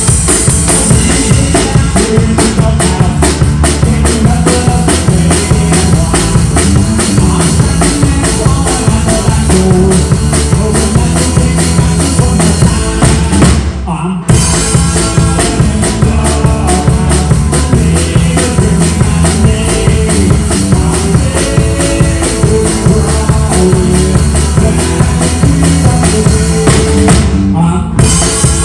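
Live rock band playing, a drum kit beating a steady rhythm under amplified guitars. The band breaks off for an instant twice, about halfway through and near the end, then comes straight back in.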